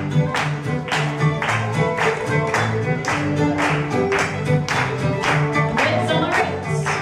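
Live string band of fiddle, guitar and mandolin playing a contra dance tune, with a steady beat of about two strokes a second.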